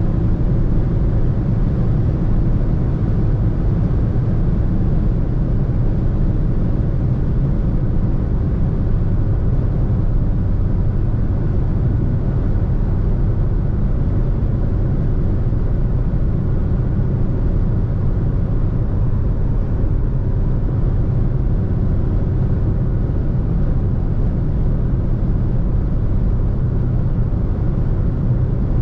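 Steady road and engine noise from a 2020 Fiat Egea (Tipo) hatchback with a 1.6-litre 120 hp diesel, cruising at motorway speed: an even low rumble that neither rises nor falls.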